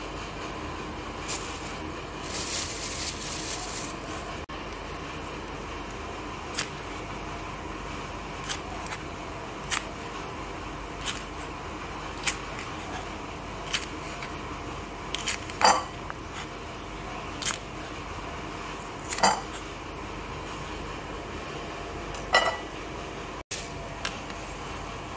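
Chef's knife slicing green chillies on a wooden chopping board: sharp knocks of the blade on the board about once a second, with a few louder, ringing knocks in the second half, over a steady faint hum.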